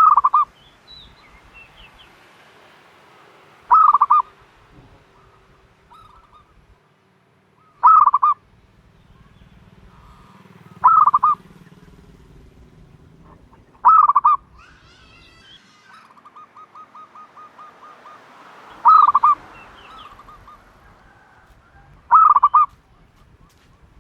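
A dove calling loudly, giving seven short calls about every three to four seconds. A faint, rapid ticking trill runs between two of the calls about two-thirds of the way through.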